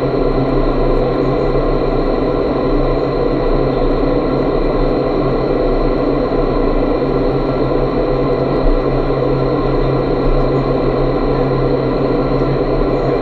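Indoor skydiving wind tunnel running: the high-speed airflow rushing steadily through the flight chamber, with a constant hum from the tunnel's fans.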